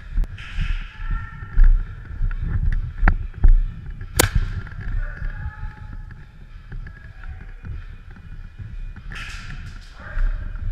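Steady low thumping and rumble with rustling from an airsoft player's body-worn camera as they move with their gear, broken by one sharp click about four seconds in and a few fainter ones.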